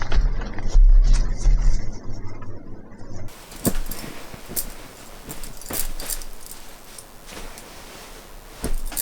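A low rumble for about the first three seconds, then scattered light clicks and knocks of small hard objects being handled.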